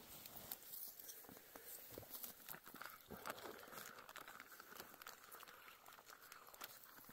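Faint crinkling and rustling with scattered small clicks, something being handled at close range.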